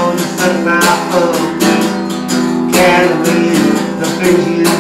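Acoustic guitar strummed in repeated chords.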